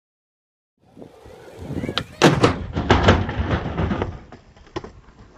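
Rolling noise building up, then about two seconds in a burst of loud bangs and clattering impacts lasting a couple of seconds: a skateboard crash into microwaves.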